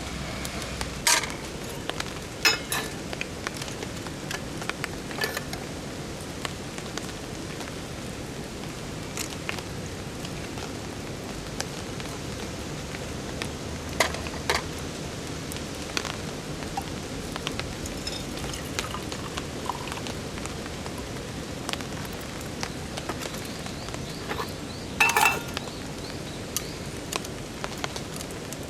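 Steady rain falling, with scattered sharp clicks and taps and a louder clatter about 25 seconds in.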